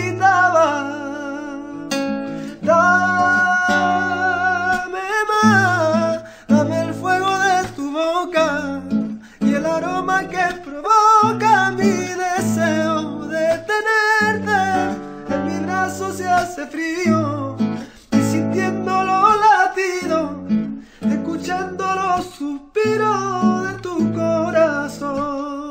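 A man singing a ballad with long, wavering held notes over acoustic guitar accompaniment.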